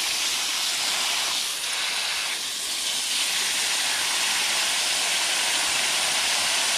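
Garden hose spray nozzle spraying water onto loose soil in a planter tub: a steady hiss of the spray with water splashing on the wet earth.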